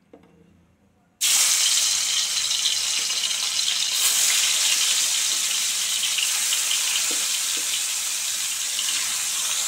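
Salt-and-turmeric-rubbed catla fish pieces sizzling loudly in hot oil in a kadai, the hiss starting suddenly about a second in as the fish goes into the oil and then running steadily.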